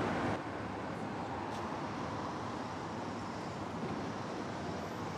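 Steady city traffic rumble and hiss, a little louder in the first half-second.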